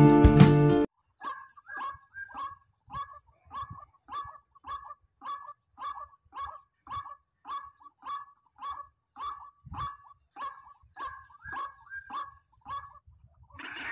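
Barred rail (tikling) call, as played from a lure speaker: a short harsh note repeated at an even pace of about two a second.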